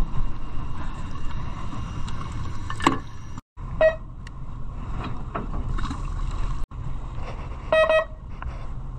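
Steady low rumble of a fishing boat's engine at sea, with short electronic beeps about four seconds in and a quick run of beeps near the end. The sound cuts out briefly twice.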